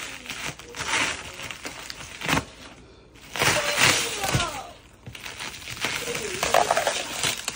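Tape and wrapping being ripped and torn off a heavily taped present in repeated noisy bursts, the loudest about halfway through, with voices in between.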